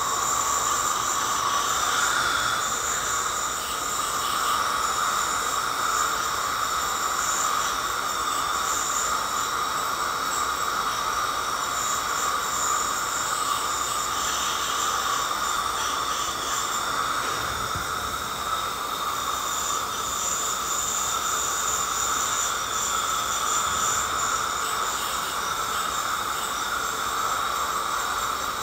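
Ultrasonic dental scaler running with its water spray, a steady high hiss and whine, as the tip works heavy tartar off the lower front teeth.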